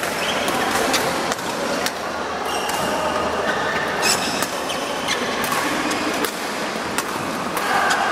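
Badminton rally: sharp racket hits on the shuttlecock about once a second, with brief shoe squeaks on the court floor, in a large echoing sports hall.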